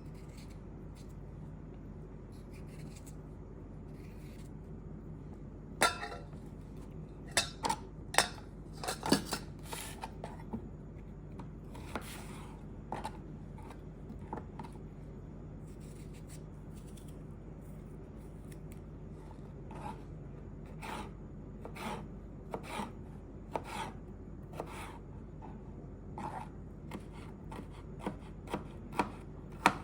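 Kitchen food preparation: irregular sharp knife cuts and clicks of utensils on a cutting board, coming in clusters, over a steady low hum.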